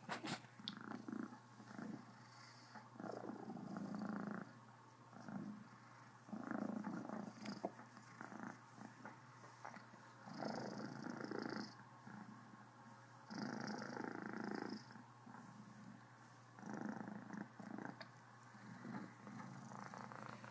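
Cornish Rex cat purring, swelling and fading in louder stretches about every three seconds.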